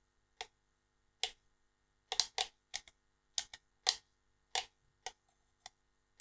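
Toggle switches on a radio transmitter being flicked back and forth to test the drone's mode switches. They make about fifteen sharp plastic clicks at uneven intervals, some in quick pairs.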